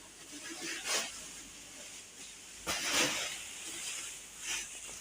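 Three short bursts of hissing, rustling noise: one about a second in, a longer one around three seconds in, and one near the end.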